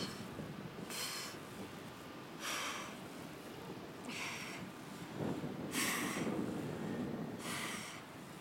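A woman's sharp exhalations, one with each crunch, five breaths evenly spaced about every second and a half, each a short hissing puff.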